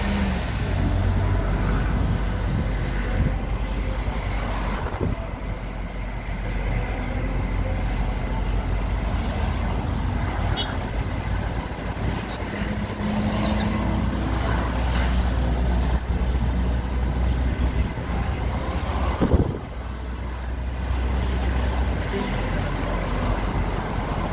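Road and engine noise from inside a moving car in traffic: a steady low rumble, with a brief hum from a passing vehicle about halfway through. A single sharp knock about nineteen seconds in is the loudest moment.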